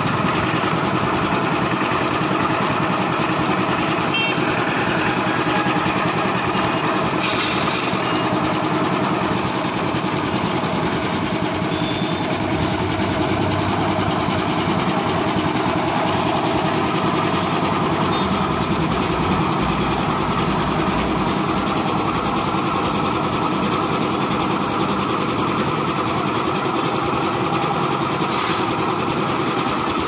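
Engine of a wheeled concrete mixer-and-hoist machine running steadily under load.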